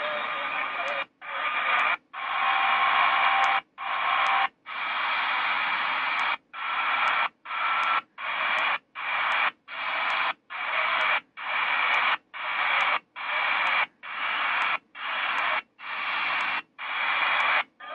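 HanRongDa HRD-747 scanner radio on shortwave AM, stepping from channel to channel through the 9 MHz band. The static hiss is cut by a brief mute and a tick at each step, and it swells back up after each one, with faint whistles. The steps come about once a second, then quicken to a steady pace of about one every 0.7 s.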